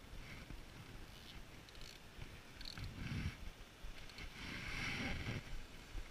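Faint wind and surf wash on an open beach, swelling twice, about three and five seconds in, with a few faint small ticks from handling a spinning reel.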